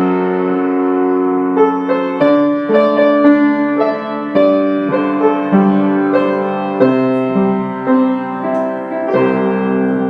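Solo piano playing a slow melody over held chords, each note struck and left to ring.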